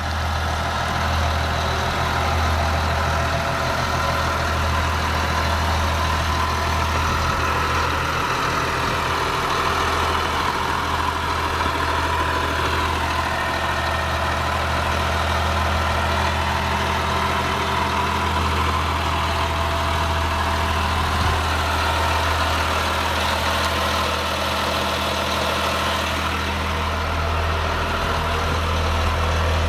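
2006 Blue Bird Vision school bus's diesel engine idling steadily, with a deep, even hum.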